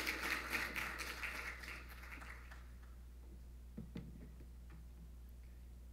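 Audience applauding, dying away about two and a half seconds in, followed by a couple of faint knocks.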